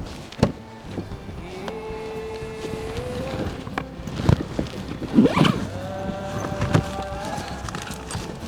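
Background pop-folk song continuing without lyrics, with long held notes that glide up a little. Several sharp knocks or thumps sit over the music, the loudest right at the start and twice more about halfway through.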